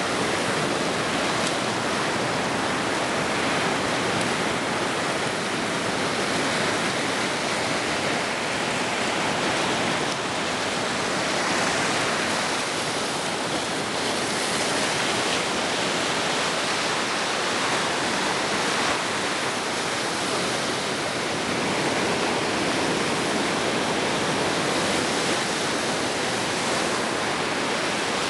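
Ocean surf on a beach, a steady rushing wash with only slight swells in level.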